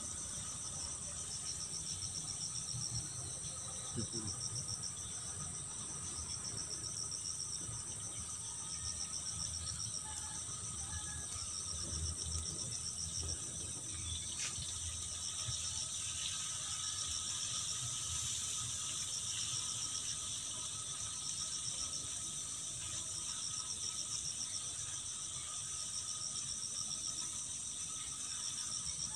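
A steady, high-pitched chorus of insects chirring in the surrounding vegetation, with a rapid, even pulsing trill, over a faint low rumble.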